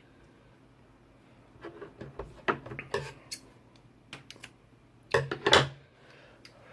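Sharp clicks, snips and rattles of a small cutting tool and the stripped wires of a Cat5 network cable being handled while the cable's filler strand is cut away. They come in irregular clusters, the loudest about five seconds in.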